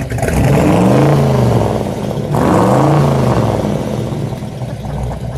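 1962 Chevrolet Bel Air's 409 cubic-inch V8 revved twice from idle, each blip of the throttle climbing and then dropping back, the second about two seconds in.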